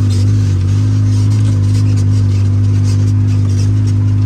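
Side-by-side off-road vehicle's engine running steadily at an even pitch, a loud constant drone heard from on board.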